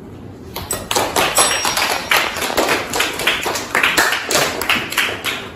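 A group of students applauding: many hands clapping irregularly, starting about half a second in and dying away near the end.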